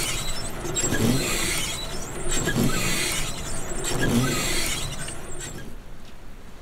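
Rain falling on a car's roof and windshield, heard from inside the cabin, with a low sound that rises and falls in pitch about every second and a half. The rain noise eases about five and a half seconds in.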